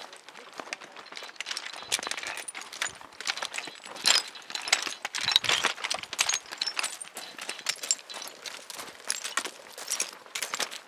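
Hiking boots crunching and scraping on loose, flat shale scree, the rock chips clacking against each other with every step in an irregular run of sharp clicks.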